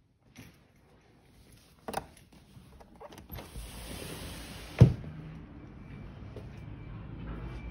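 A sliding glass balcony door rolling open along its track for about a second, ending in a loud thud as it reaches its stop, after a few light clicks. A steady low outdoor background noise follows the thud.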